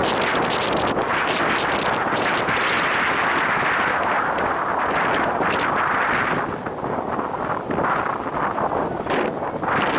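Strong wind buffeting the microphone: a loud, steady rushing that eases briefly about six and a half seconds in and again near the end.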